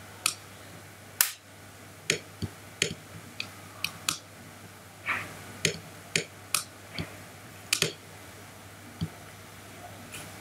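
Computer mouse clicking: about fifteen short, sharp clicks at irregular intervals over a faint, steady low hum.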